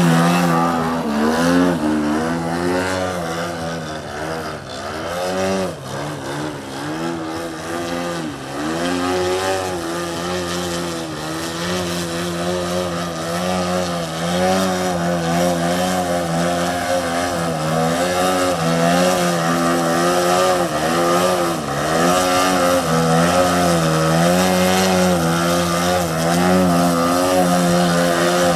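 Engine and propeller of a radio-controlled scale Edge 540 aerobatic model plane, the pitch repeatedly rising and dipping as the throttle is worked through manoeuvres. Over the last several seconds it holds a steadier, higher note as the plane hangs vertically on its propeller in a hover.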